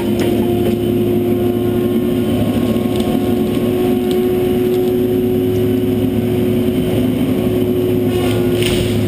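John Deere 843J feller buncher running steadily at working revs, its diesel engine and hydraulics giving a constant hum with a steady high tone. Near the end there is a brief rustling crash as a cut white pine tips through the branches.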